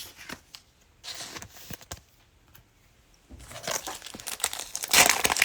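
Wrapper of a 2021 Mosaic football card pack crinkling and tearing as it is opened. The crinkling is loudest in the last two seconds, with a few light clicks near the start.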